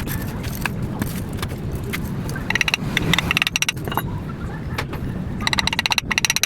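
Rapid metallic clicking from hand tools on motorcycle engine parts, in two runs of about a second each, the second near the end, over a steady low rumble.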